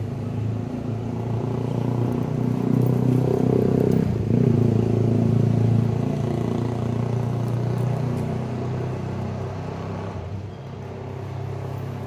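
A motor vehicle's engine running steadily, a low hum that swells to its loudest around the middle and then eases off.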